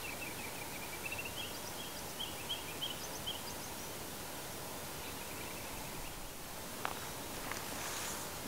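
Small birds chirping in quick runs of short, high notes over a steady outdoor hiss: repeatedly during the first few seconds and briefly again about five seconds in. A single sharp click comes near the end.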